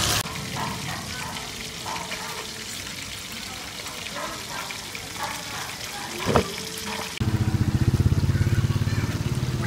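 Fish deep-frying in oil in a wok, a loud hiss that cuts off almost at once. Then low background noise with faint voices and a sharp click about six seconds in, and from about seven seconds in a louder low drone with a fast pulse.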